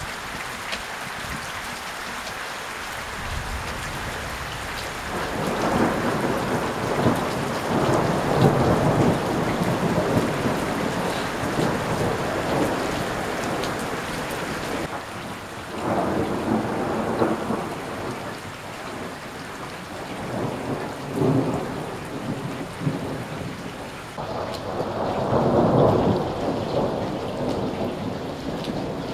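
Steady rain falling through a thunderstorm, with rolling thunder: long rumbles build about five seconds in, again around sixteen seconds, and once more near the end.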